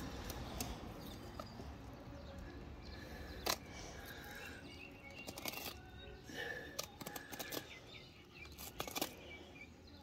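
A filleting knife cuts a large snapper's fillet away from the ribs, making faint scrapes and scattered sharp clicks as the blade catches on scales and bone.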